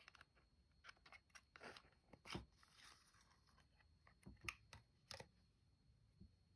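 Faint handling of a small cardboard box: flap scrapes and rustles as it is opened and a gel-polish bottle slides out, with several light taps and clicks, the sharpest about two and four and a half seconds in.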